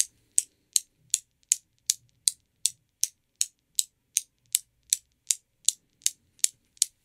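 Newton's cradle running with two balls swinging: the metal balls click sharply against the row at each swing, in an even rhythm of about two and a half clicks a second.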